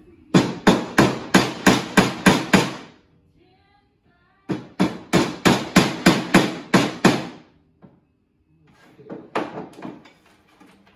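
A hammer driving grooved wooden dowels into the corner joint of an old window sash. There are two quick runs of about ten blows each, roughly four a second, then a few lighter blows near the end.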